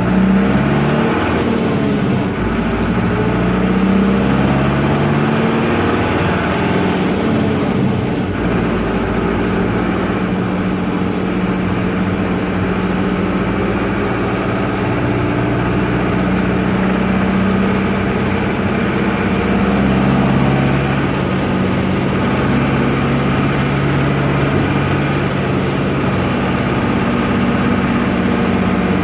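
Air-cooled Deutz F4L912 four-cylinder diesel of an Otokar M-2000 minibus running under way, heard from the cab: noisy, with its pitch rising and falling several times in the first eight seconds or so, then holding steady.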